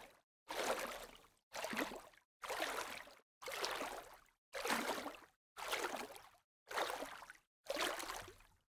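Water sloshing and splashing in regular surges about once a second, each starting sharply and fading away before the next.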